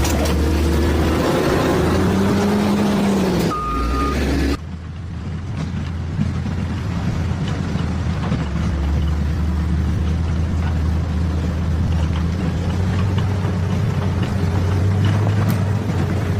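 Motor grader's diesel engine running steadily during road grading. About three and a half seconds in, the sound changes briefly and a short beep sounds, then the engine runs on.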